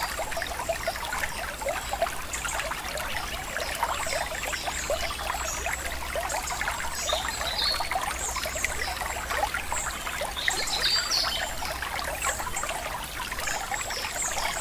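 Shallow river water trickling and splashing steadily.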